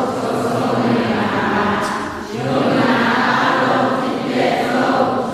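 A group of people chanting a Burmese verse on the Four Noble Truths in unison, with a short pause for breath about two seconds in.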